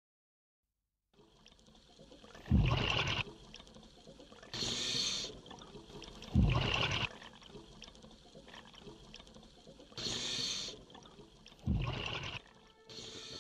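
Scuba diver breathing through a regulator: three gurgling bursts of exhaled bubbles alternate with three hissing inhalations, about three and a half seconds apart.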